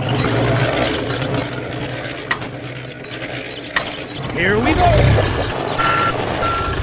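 Mechanical clattering and rattling with a few sharp clicks. About a second before the end, a vehicle's reversing beeper starts, beeping about twice a second.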